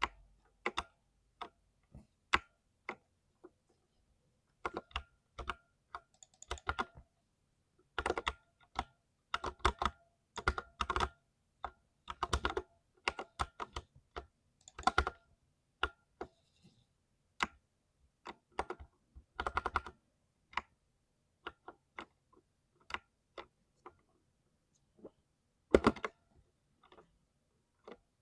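Typing on a 60% keyboard: irregular single keystrokes and short quick runs of clacking keys, with pauses between them. The densest typing comes in the middle, and the strokes grow sparse toward the end.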